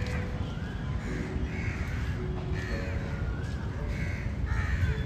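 Crows cawing over and over, harsh calls about once a second, against a steady low outdoor rumble.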